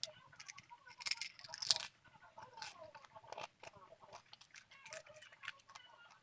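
A person eating crunchy food close to the microphone: several loud crunching bites, the loudest about a second in, with chewing between them.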